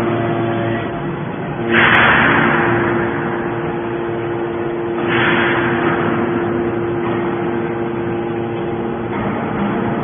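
Hydraulic scrap metal baler running, its hydraulic pump giving a steady hum. Two loud hissing surges about two seconds in and again about five seconds in, each fading out over a second or so.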